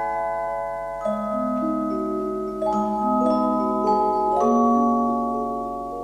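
Background music of mallet percussion: long, ringing pitched notes layered into chords, with new notes struck about a second in and several more between about three and four and a half seconds.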